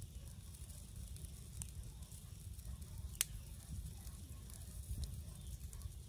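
Wood campfire burning with soft crackling and one sharp pop about three seconds in, over a steady low rumble.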